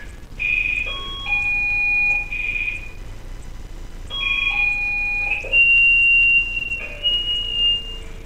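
Electronic ring melody from a VTB 05 video doorphone's indoor monitor, sounding after the call button is pressed on the outdoor station: a short tune of clear beeped notes, played twice, ending on two longer, higher notes.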